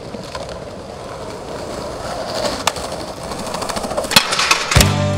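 Skateboard wheels rolling over plaza paving, the rumble growing louder as the board nears, with a single sharp clack about two and a half seconds in. About four seconds in comes a quick run of board clacks and cracks as the skater hits a ledge, then guitar music starts just before the end.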